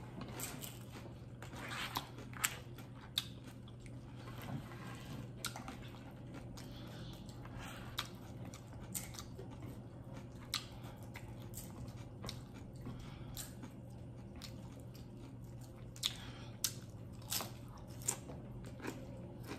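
Close-up crunching and chewing of nacho tortilla chips. Sharp, irregular crunches come as bites are taken, loudest a couple of seconds in and again near the end, over a steady low hum.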